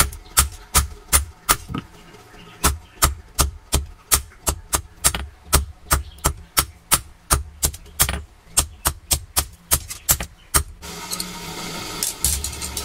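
Hand hammer blows on red-hot leaf-spring steel on an iron anvil block, a steady rhythm of about three strikes a second with a short pause near two seconds in. The strikes stop about eleven seconds in, and a steady rushing noise with a few lighter knocks takes over.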